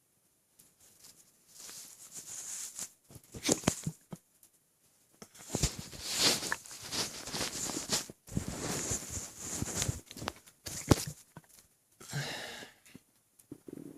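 Close-miked noises from a very full, water-filled belly: crackling, rustling gurgles mixed with rubbing, in stretches of a few seconds, with a couple of sharp knocks.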